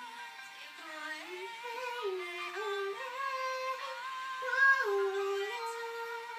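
A young girl singing a tune, holding notes that step up and down in pitch.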